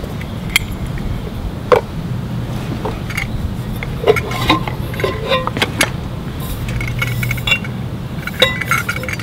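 Stanley Adventure stainless steel cook pot and its lid clinking and scraping as they are handled and the nested cups are taken out: a scatter of sharp metal clinks, some with a brief ring.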